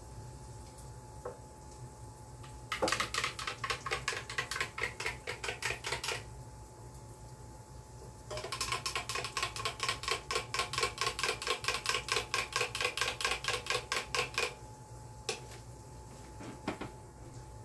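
A metal spoon stirring coffee in a glass jar, clinking rapidly against the glass at about five or six strokes a second, in two bouts with a short pause between.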